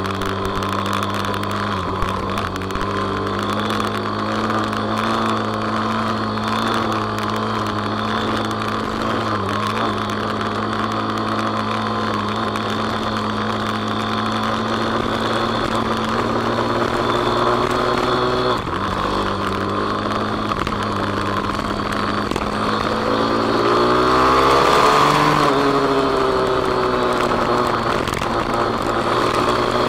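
Kawasaki KSR110 single-cylinder four-stroke, bored out to 185cc with a four-valve head, running hard while riding a track lap, with wind rush on the microphone. Its pitch holds mostly steady with brief dips about 2 s and 18 s in, then revs rise and fall a little over 20 s in.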